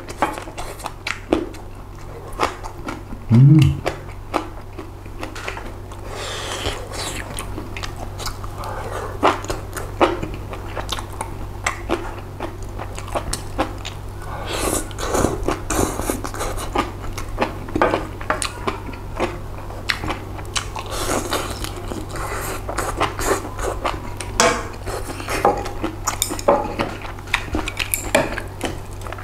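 Close-miked eating: chewing and slurping chewy spicy jjolmyeon noodles and pork-belly rolls, with chopsticks clicking against the dishes.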